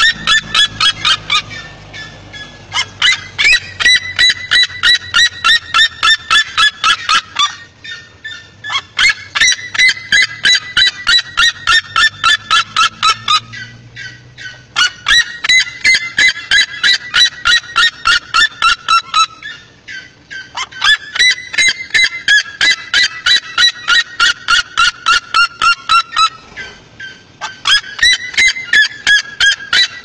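Red-legged seriema calling: a loud, shrill, laugh-like series of rapid yelping notes, several a second, each bout sliding down in pitch over four to five seconds. The bouts repeat about six times with short pauses between them.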